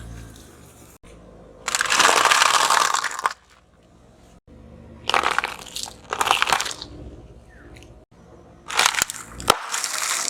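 Objects crunching and breaking under a car tyre, in several separate bursts of crackling with sharp cracks, the longest about a second and a half.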